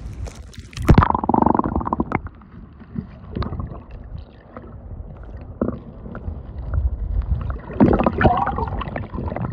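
Muffled water sounds heard from underwater in shallow seawater: low sloshing and gurgling with scattered clicks, louder about a second in and again near the end.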